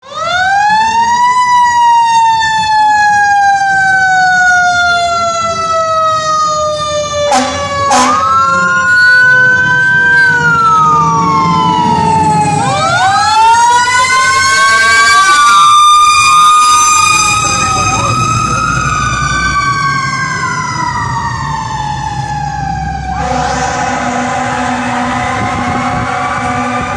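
Fire engine siren wailing in long, slow rises and falls, with a second siren wail overlapping it through the middle. Two short blasts come about seven seconds in, and from about twenty-three seconds a steady horn tone sounds under the siren.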